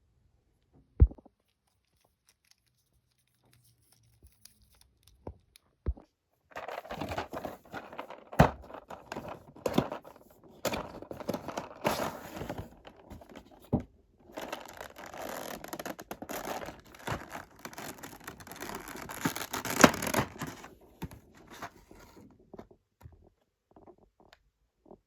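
Plastic packaging crinkling and tearing as an action figure and its accessories are unpacked, with frequent sharp clicks of plastic parts. A couple of lone knocks come first, then the rustling runs from about six seconds in until near the end.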